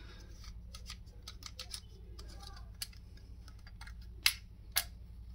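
A strip of brad nails pushed by hand along the metal magazine channel of a Ryobi AirStrike cordless brad nailer: faint metallic scraping, then two sharp clicks half a second apart a little past four seconds in. The strip still catches on a small groove left at the tip of the track.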